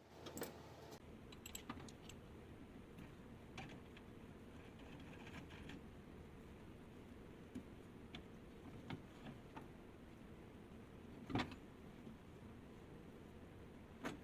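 Faint, scattered light clicks and taps of small hard parts being handled at a workbench, the loudest about eleven seconds in and another near the end.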